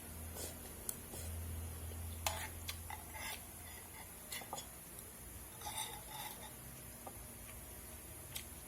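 Scattered light clicks and clinks of utensils against a bowl during a meal of instant noodles, with a few brief scraping sounds, over a steady low hum.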